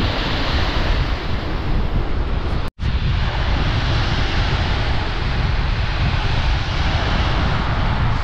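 Strong onshore wind buffeting the microphone with a heavy rumble, over the steady wash of rough surf breaking on the shore. The sound cuts out for a moment about three seconds in.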